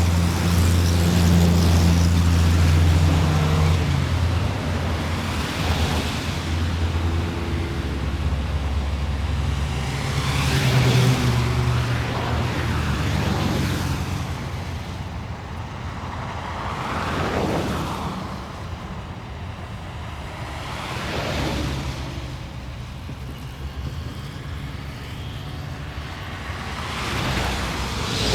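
City street traffic: a heavy low engine hum from nearby vehicles through the first half, easing off about halfway. Several cars pass by one after another, each a swell of tyre and engine noise that rises and falls away.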